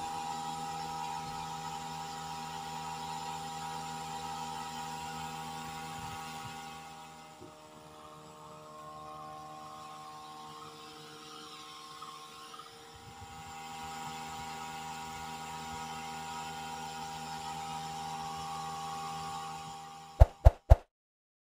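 Small DC motor of a homemade mini stand fan running with a steady whine, softer for a few seconds in the middle. A few sharp pops sound near the end.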